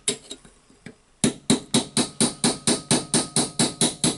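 Hammer striking a steel drift punch set against the inside of a Hilti TE1000-AVR demolition hammer's housing, knocking the housing apart: a few separate taps, then from just over a second in, steady metal-on-metal blows about four a second.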